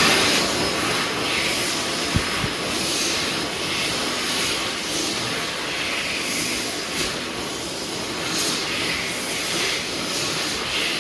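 Warner Howard Airforce hand dryer running at full power: a loud, steady rush of air.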